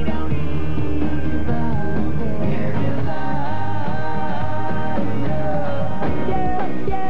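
Rock song with singing.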